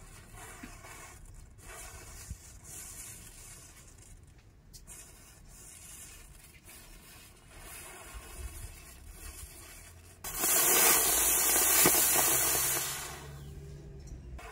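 Matchsticks in a chain flaring one after another with a faint crackling fizz, then about ten seconds in a firework goes off with a loud spraying hiss for about three seconds before dying away.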